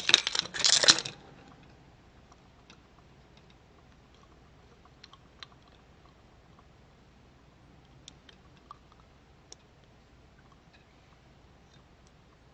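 Handling noise from a plastic liquid-glitter keychain with a metal clasp and ring, turned over in the hands. A louder burst comes in the first second, then only a few faint, scattered clicks and taps.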